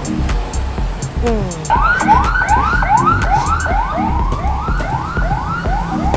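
Siren yelping in quick rising whoops, about two or three a second, beginning a little under two seconds in, over background music with a steady low beat.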